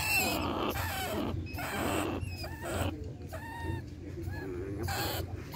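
Several short animal calls that rise and fall in pitch, mixed with scraping and rattling noise around wire-mesh cage traps.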